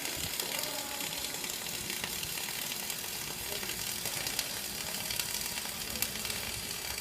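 Electric welding arc crackling and sizzling steadily as a weld pass is laid.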